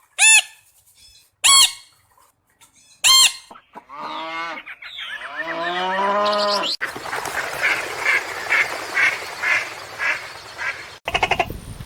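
A run of different animal calls. First come three short, loud calls about a second and a half apart, then a longer call that glides in pitch, then a series of rhythmic calls about twice a second.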